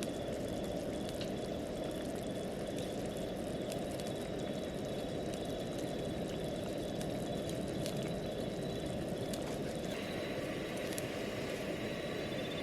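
Steady rushing of a camp stove burner with food cooking over it, with a faint, evenly pulsing high tone above it.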